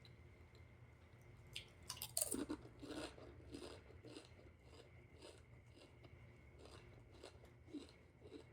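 A person biting into crunchy food and chewing it close to the microphone: a loud crunch about two seconds in, then steady chewing at about two chews a second.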